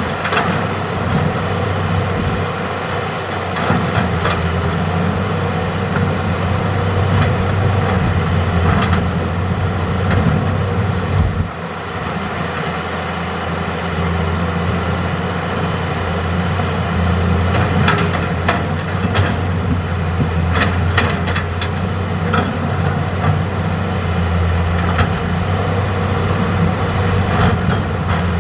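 Hitachi hydraulic excavator's diesel engine running steadily under load as it digs and loads river rock. Scattered knocks and clatters of rock can be heard, with a brief dip in the engine note partway through.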